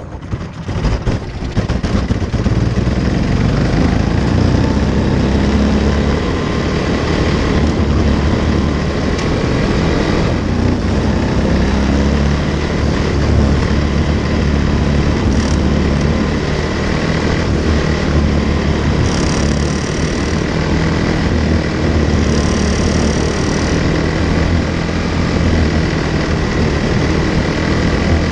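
Quarter midget race car's single-cylinder Briggs & Stratton Animal engine running steadily, heard from on board the car.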